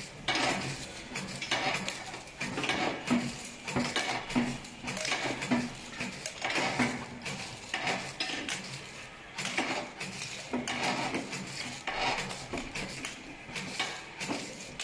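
Automatic sachet dispenser running: a clattering, clinking mechanical stroke about once or twice a second as it cuts sachets off the roll and sets them onto containers passing on the conveyor, over a steady low machine hum.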